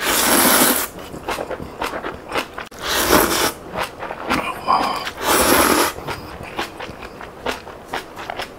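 A person slurping white jjamppong noodles hard from a soup bowl: three long slurps, about a second in, three seconds in and five seconds in, with chewing and mouth clicks between them.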